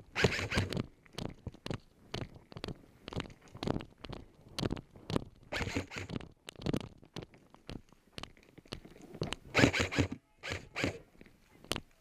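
Footsteps crunching on dirt, with gear and clothing rustling and scraping against the microphone; louder scraping rushes at the start and again about ten seconds in.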